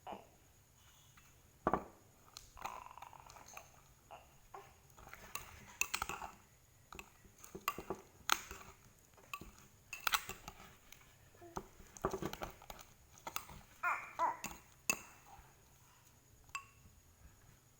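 Slime being mixed in a container with a stirrer: irregular taps and clinks of the stirrer against the container, with softer scraping in between.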